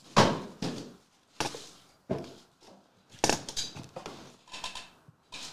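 A string of sharp knocks and clatters from a sealed trading card box and other items being handled and set down on a table, the loudest right at the start.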